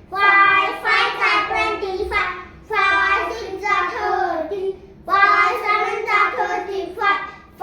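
A group of young children chanting multiplication tables in unison, in a sing-song rhythm, in three phrases with short breaks between them.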